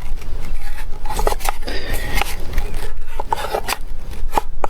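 Knife blade cutting into a PVC pipe: a run of short, irregular scraping strokes of the blade on the plastic.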